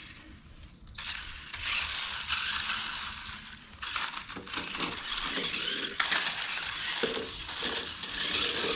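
Toy remote control car driving, its small battery-powered motor and gears whirring in spurts as it speeds up and slows.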